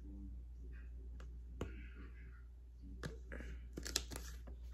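Tarot cards being handled: scattered light clicks and taps, coming closer together in the last second or so, over a low steady hum.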